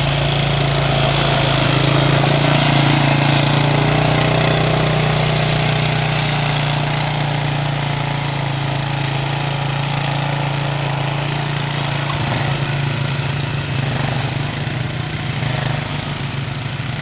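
Off-road buggy engine running steadily as the buggy passes close by, then growing quieter as it drives off through the woods.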